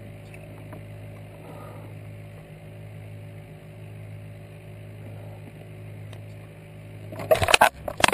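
Steady low hum, with a burst of sharp knocks and rattles near the end.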